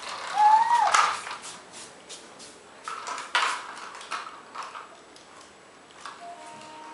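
A small plastic toy truck clattering and knocking on a ceramic tile floor as it is pushed and handled, in a run of short, irregular clicks and knocks.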